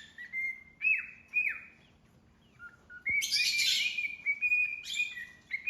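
Pet parrot whistling: short whistled notes and downward swoops in quick runs, pausing for about a second partway through before starting again.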